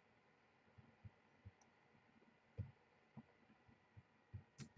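Near silence, with a few faint soft taps; near the end a run of sharper clicks from computer keyboard typing begins.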